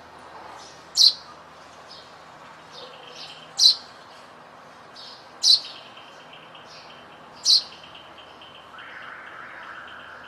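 Sparrow chirping: four loud single chirps about two seconds apart, with fainter chirps in between, over a steady background hiss.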